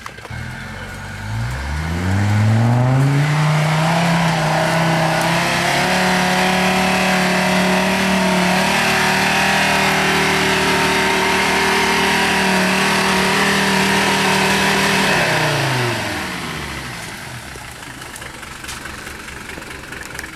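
Modified GAZ-69 off-roader's engine revving up about a second in and held at high revs under load for some twelve seconds as it climbs a rutted forest slope, then the revs drop away and it runs lower and quieter near the end.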